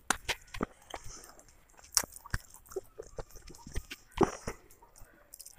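Close-miked eating: a boy chewing a mouthful of rice and broiler chicken, with irregular sharp mouth clicks and smacks, the loudest about two seconds and four seconds in.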